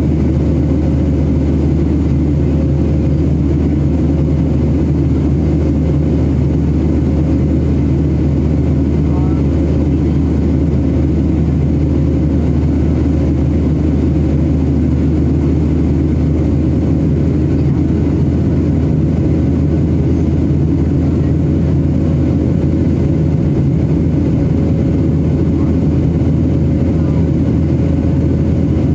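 Cabin noise of a Boeing 737 airliner in cruise: a loud, steady rumble of engines and rushing air heard from inside the cabin, with a faint steady hum over it.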